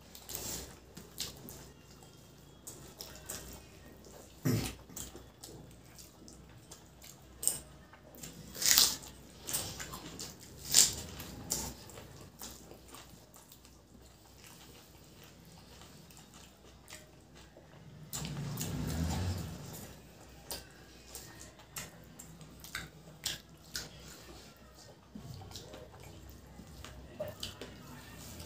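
Close-up eating sounds: fingers squishing rice into egg curry, with chewing and wet mouth sounds. Scattered sharp smacks and clicks, two of them louder about nine and eleven seconds in.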